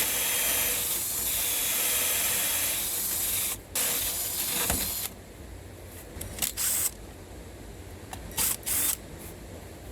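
A drill driving a 1-inch hole saw into the edge of a wooden slab door for the latch bore: a steady hissing cut over the motor's whine, with a short break about three and a half seconds in, stopping about five seconds in. Then come a few brief bursts of the drill.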